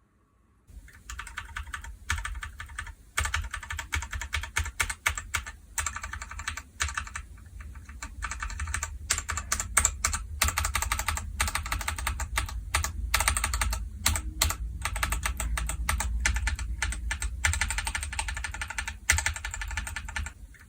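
Fast typing on mechanical keyboards with tactile switches, starting with stock Lilac tactile switches on an unmodded Keychron V2 and followed by other tactile switches for comparison; a dense run of key clicks with a few short breaks.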